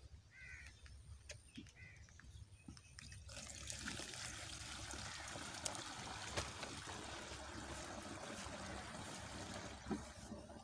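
Liquid poured from an upturned plastic jug into the plastic tank of a knapsack power sprayer while the pesticide spray is being mixed: a steady trickling splash that starts about three seconds in.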